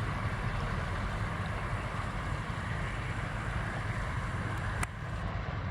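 Inland motor tank ship's diesel engine exhaust running steadily with a low, even rumble. A single sharp click comes near the end.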